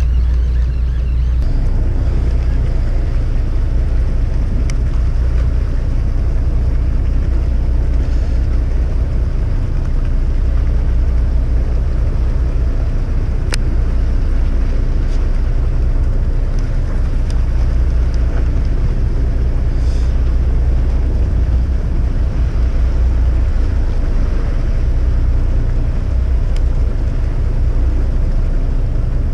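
Boat engine running steadily, a continuous low hum with no change in speed.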